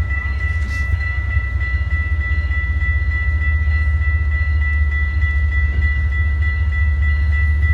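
Canadian Pacific train rolling past: a loud, steady low rumble that grows slowly louder, with a steady high-pitched ringing tone over it.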